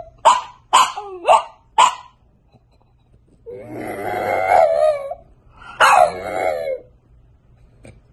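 French bulldog puppy vocalizing at a window: four short yips in quick succession, each dropping in pitch, then after a pause of about a second and a half two longer wavering howls.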